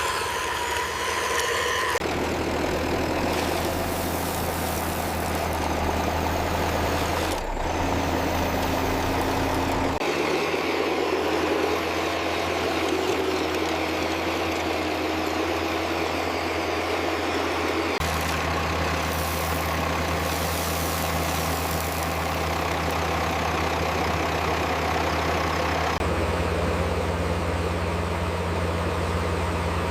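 Heavy construction-vehicle engine sound, a steady low diesel-like hum. Its pitch and character change abruptly several times, as if cut between different machines.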